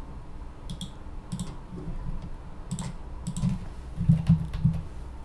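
Typing on a computer keyboard: short, irregular keystrokes and clicks, a few at a time, with bursts of several quick presses about 3 to 4½ seconds in.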